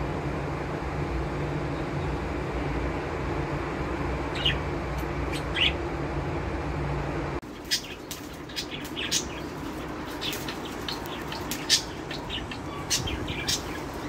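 Budgerigars chirping in short, sharp, scattered calls. For the first half a steady low hum runs under a couple of chirps; it stops abruptly about seven seconds in, after which the chirps come thicker.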